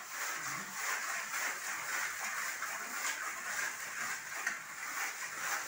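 Old plaster wall being rubbed down by hand with a hand tool, a continuous scratchy rasp that swells and dips with the strokes.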